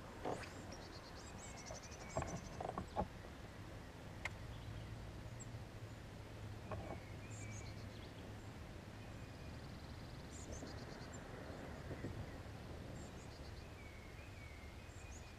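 Quiet lakeside ambience with songbirds calling faintly in short chirps and trills, over a low steady background hum. A few sharp clicks and knocks come about two to three seconds in.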